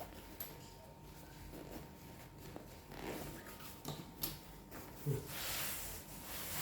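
Faint handling noises of packaging and a carrying bag being unpacked: light rustling, a few soft clicks and knocks, and a longer rustle near the end.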